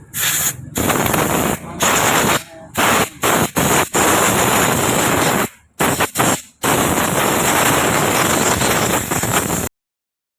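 Pneumatic impact wrench with a 16 mm socket hammering at a nut on a TVS Wego scooter's clutch assembly. It runs loud in a string of short on-off bursts, then in two longer runs of a couple of seconds, and cuts off abruptly near the end.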